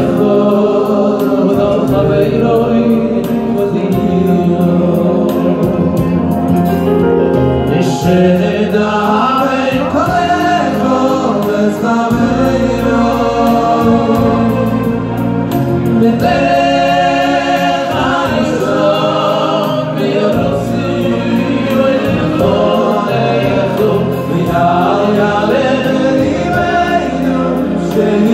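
Live male choir singing a song in harmony through a PA, with a lead voice over the group and keyboard accompaniment holding sustained bass notes.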